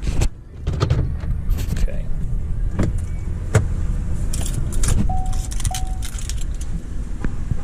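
Keys jangling and small clicks and rattles of handling inside a stopped car, over a steady low rumble, with two short electronic beeps a little past two-thirds through.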